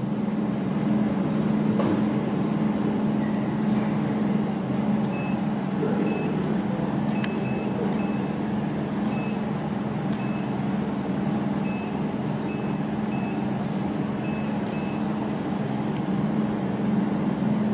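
Steady low hum of a running desktop jewelry laser welding machine, with a string of short high beeps from its touchscreen control panel as settings are tapped in, about a dozen between about five and fifteen seconds in.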